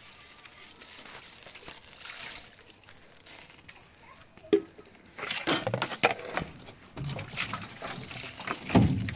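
Hand dishwashing in a plastic basin: water poured from a plastic jerrycan splashes over the dishes, with knocks and clinks of the dishes. It is mostly in the second half and loudest near the end.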